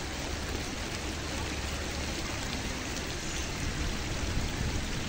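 Steady outdoor background noise: an even hiss with a low rumble and no distinct events.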